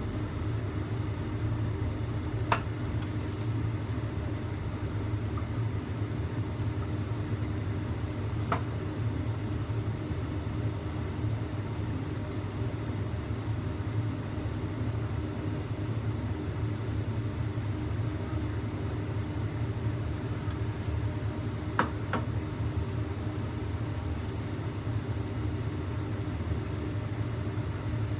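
Steady low mechanical hum in a kitchen, with a few light, sharp clicks: one a couple of seconds in, one about a third of the way through, and one near the end.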